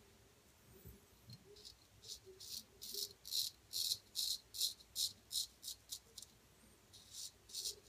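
Gold Dollar 800 straight razor scraping through lathered stubble on the neck in quick, short, quiet strokes, about three a second, starting about two seconds in, with a brief pause near the end before the strokes resume.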